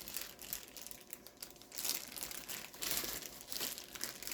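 Crinkling of plastic food packaging as it is handled, in irregular rustles that grow louder about two and three seconds in.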